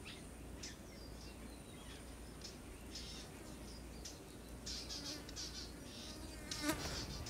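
Faint open-air ambience: scattered short bird chirps over a steady insect buzz, with a brief vocal sound near the end.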